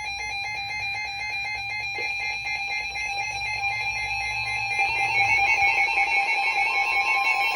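Weather radio alert tone signalling a new warning: a shrill steady alarm tone, pulsing quickly. It grows louder about five seconds in, and a second, higher tone joins near the end.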